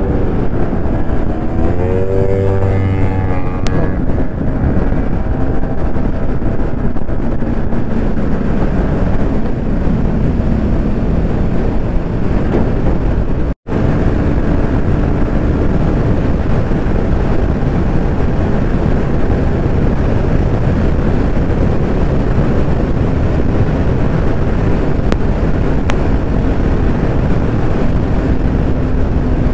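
Motorcycle engine running under load and wind rushing over the microphone as a Yamaha sport bike cruises and speeds up from about 85 to 110 km/h. The sound cuts out for an instant about halfway through.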